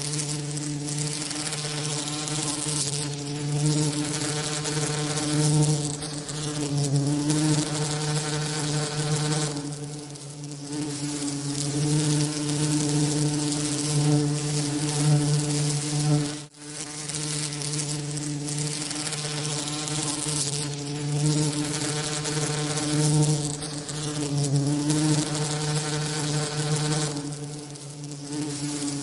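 A bee's wingbeat buzz, steady and low with a slightly wavering pitch, over a constant hiss, dropping out briefly about halfway through.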